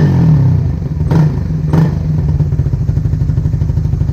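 Suzuki Raider Fi 150's single-cylinder engine running through an aftermarket black Indo muffler. It takes a few quick throttle blips in the first two seconds, then settles into a steady idle.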